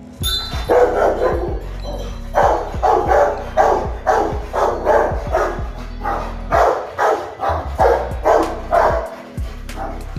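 A Rottweiler barking over and over, a quick string of loud barks at about two a second, with a short pause near the start.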